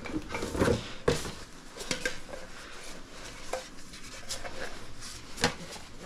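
Metal aerosol spray-paint cans handled and set down, clinking and knocking against each other in a few irregular sharp taps. The loudest taps come about a second in and near the end.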